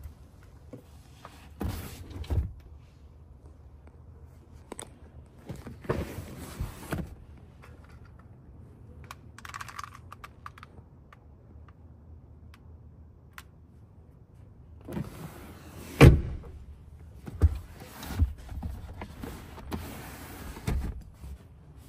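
Rear seat back and centre armrest of a BMW X6 being folded and latched: scattered clicks, rustling of leather and trim, and several thumps, the loudest a sharp thump about 16 seconds in.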